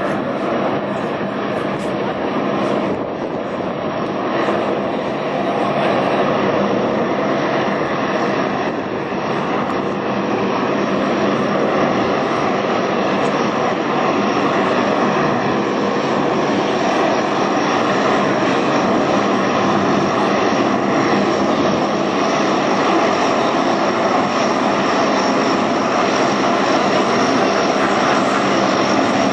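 Lockheed C-130 Hercules taxiing on its four Allison T56 turboprops: a continuous, steady propeller-and-engine drone with a high whine riding over it, growing slightly louder later on.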